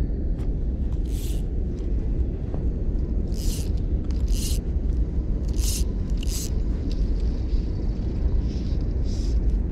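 Steady low rumble of wind on the microphone, with about six short hissing swishes of fly line as it is cast and stripped through the rod guides.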